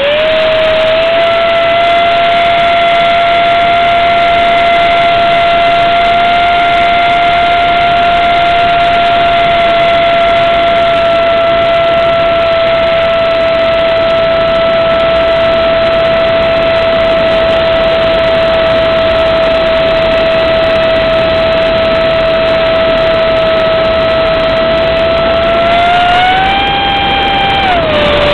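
Electric motor of an RC foam F-18 jet on a 4S battery running near full power, heard from a camera mounted on the plane. It holds a loud, steady high whine, rises in pitch briefly near the end, then drops lower as the throttle comes back.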